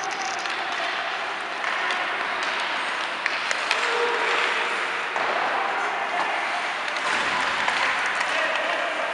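Ice hockey rink din: a steady wash of shouting and cheering voices, with a few sharp clacks of sticks and puck.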